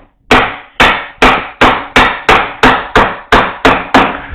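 Mallet striking a mortise chisel about eleven times in a steady rhythm, roughly three blows a second, driving the chisel into the wood to chop out a mortise.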